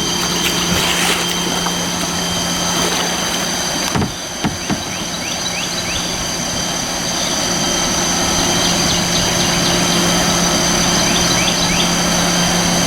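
Steady rush of river water running over a shallow drop-off, with a few short bird chirps and a couple of light knocks about four seconds in.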